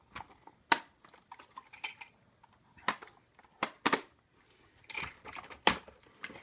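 Hard plastic clicks and knocks from a Bruder JCB 5CX toy backhoe loader being handled as its outriggers are swung out, about half a dozen sharp, irregular clicks.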